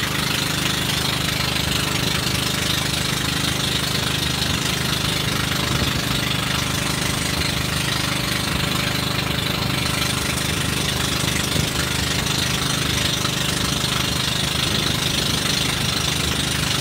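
Banca outrigger boat's engine running steadily under way, very loud and even, with a constant hiss over it.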